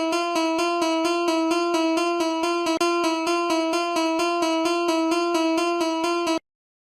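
Japanese level-crossing alarm ringing its rapid 'kan-kan' bell tone, about four strokes a second in a steady alternating two-tone pattern, cutting off suddenly near the end.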